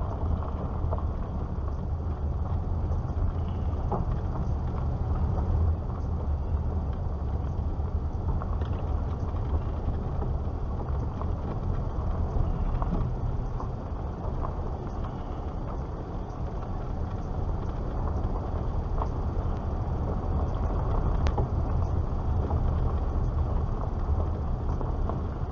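Car driving slowly, heard from inside the cabin: a steady low rumble of engine and road noise, with a few light ticks and knocks now and then.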